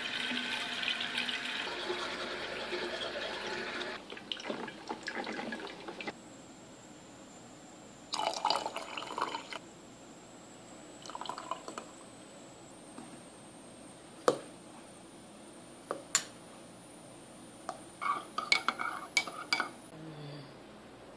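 Water running steadily for about four seconds, then liquid poured into a coffee mug in short spells, with a few sharp clinks of a mug and dishes.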